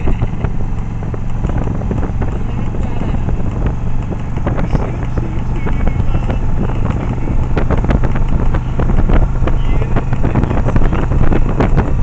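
Motorcycle riding along a road: a steady engine drone under heavy wind buffeting on the microphone, getting louder in the second half.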